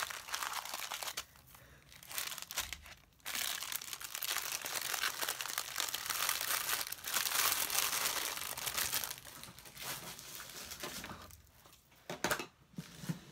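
Clear plastic bags crinkling as they are handled and stacked together. The rustling is loudest in the middle stretch and quieter at the start and end.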